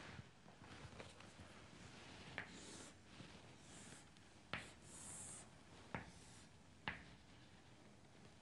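Chalk on a chalkboard: faint scratching strokes as lines are drawn, with four short sharp taps of the chalk spread through.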